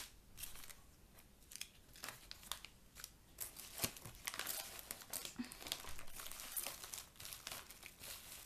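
A paper mailing bag and small plastic zip bags rustling and crinkling in a stream of short crackles as a hand rummages inside the bag and pulls out the packets.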